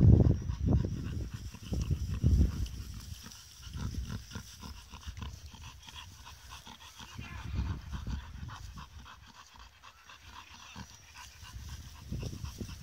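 Two bull terriers grunting pig-like while they play tug-of-war, with fast breathing between grunts; loudest in the first couple of seconds, then quieter.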